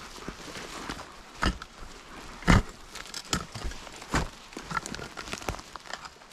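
A metal tree-planting tool jabbed into the forest floor several times, with dull thuds among rustling of undergrowth and leaf litter; the loudest thud comes about halfway through.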